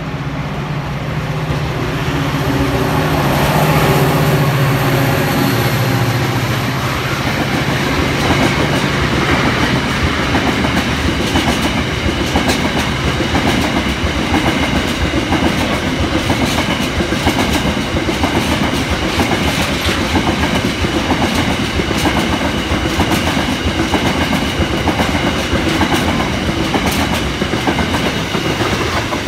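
Freight train passing close by at speed. The diesel locomotive's engine hum swells and fades over the first several seconds. Then a long string of tank-container wagons goes by with a steady, rhythmic clickety-clack of wheels over the rail joints.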